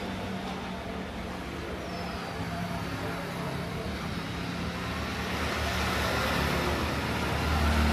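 Steady road-vehicle noise: a broad rushing sound with a low hum, growing louder toward the end.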